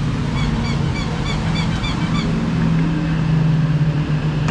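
Roadside traffic, with a vehicle engine running with a steady low hum. In the first half a quick run of about eight short, high chirps repeats a few times a second.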